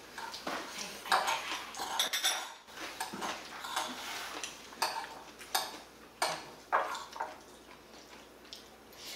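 Metal spoon clinking and scraping against a ceramic bowl while someone eats rice, in short irregular strokes about once every half second to a second.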